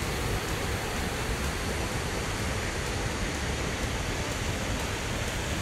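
Waterfall plunging into a rocky gorge: a steady, even rush of falling water with a low rumble underneath.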